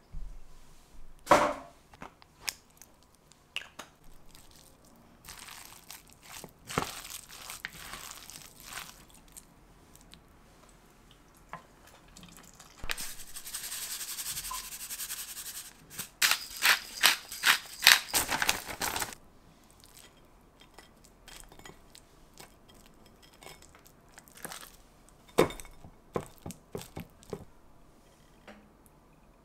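A wooden spatula scraping and knocking against a glass bowl as potato salad is mixed, with scattered clicks. About 13 seconds in, salt pours from a bag in a steady hiss for a few seconds, then a run of quick knocks as the salad is stirred.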